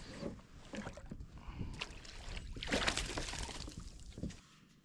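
Water splashing beside a kayak as a hooked blue cod thrashes at the surface and is scooped into a landing net. The splashing comes in short bursts and is heaviest about three seconds in, then stops just before the end.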